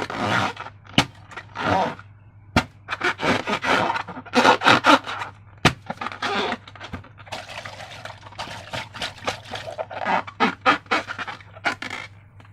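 Slime being squished and worked by hand: a quick, irregular run of short squelching, crackling and scraping noises with a few sharp clicks.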